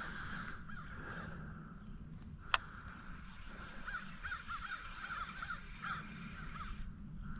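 Birds calling in two runs of short, quick calls, with one sharp click about two and a half seconds in.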